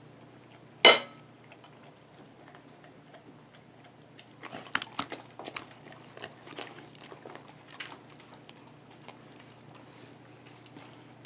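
A sharp clink of a metal utensil against a plate about a second in. Then a dog takes bits of mashed potato from the fingers and chews, a run of small mouth clicks around four to six seconds in, with a few scattered ticks after.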